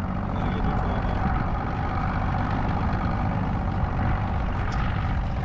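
Boat's outboard motor idling steadily.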